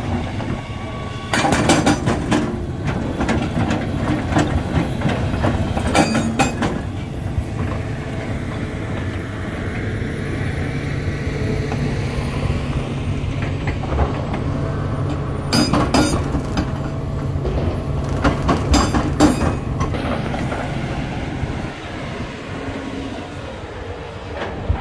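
Hitachi Zaxis 350LC-N excavator's diesel engine running steadily, with about four short bursts of loud metal clanking and rattling from the machine.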